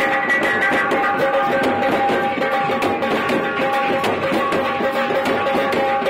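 Drum band playing a fast, dense beat on strapped drums, a small metal-shelled tasha and a large bass drum among them, with a held melody line sounding over the drumming.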